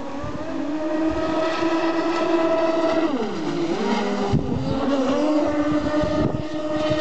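Twin brushless electric motors of a large RC speedboat running at speed: a steady high whine that drops in pitch about three seconds in and climbs back up over the next second.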